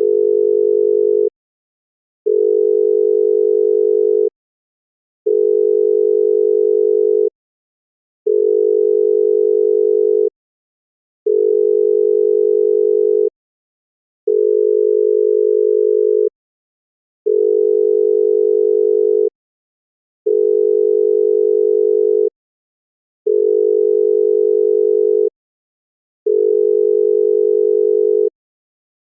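Obsolete Egyptian telephone ringback tone: a single low 425 Hz tone, amplitude-modulated at 50 Hz, sounding in 2-second bursts with 1-second gaps, ten bursts in all. It tells the caller that the called phone is being rung.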